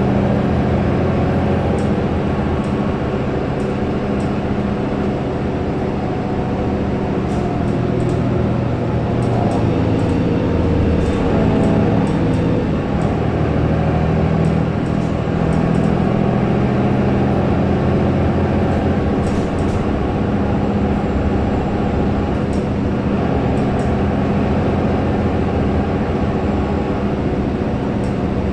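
Mercedes-Benz O530 Citaro city bus heard from inside the passenger cabin: a steady engine and drivetrain drone with road noise.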